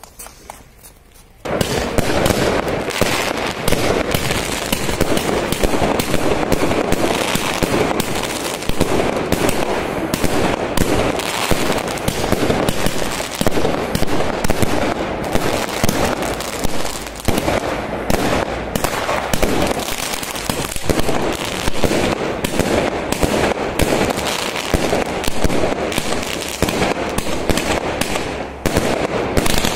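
Ground-fired consumer firework cake shooting off a rapid, unbroken barrage of launches and aerial bursts: many sharp bangs a second, starting abruptly about a second and a half in.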